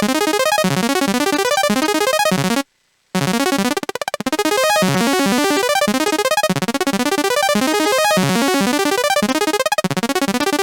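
Chiptune-style synthesizer arpeggio from the UVI 8-Bit Synth: fast, buzzy retro notes in rising runs that repeat over and over. It stops for about half a second roughly two and a half seconds in, then starts again.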